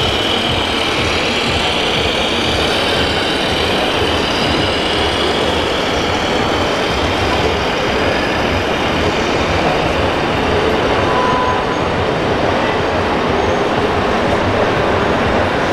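Steady rumbling running noise of a radio-controlled model car-transporter truck driving slowly, with no breaks or sudden changes.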